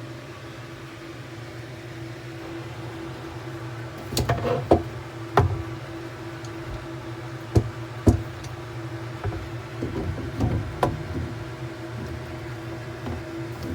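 A steady low hum, with sharp knocks and clatters over it: a few around four to five seconds in, two around eight seconds, and a scattered cluster around ten to eleven seconds.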